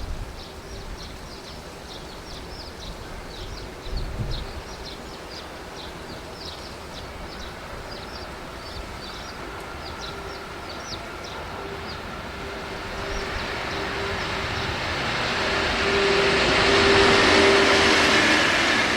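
A freight train hauled by an EF81 electric locomotive approaches, its rumble and a steady hum swelling to loudest about 17 seconds in. Short high chirps repeat over the quieter first part.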